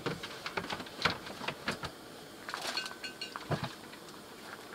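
Light metallic clicks and clinks of a Dietz #76 hurricane oil lantern being handled, its wire guard and metal parts knocking together, with a brief high-pitched metallic tone near the middle.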